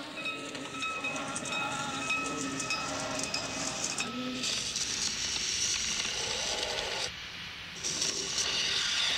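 Hissing, noisy sound-effect interlude between sections of an audiobook, starting abruptly, with faint steady tones through the first few seconds, a change in texture about four seconds in, and a brief drop in level about seven seconds in before it swells back.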